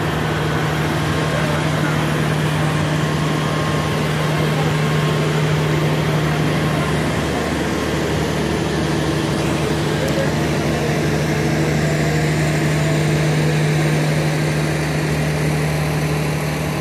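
A standing train's engine idling: a steady low hum that holds one pitch throughout, over a constant wash of background noise.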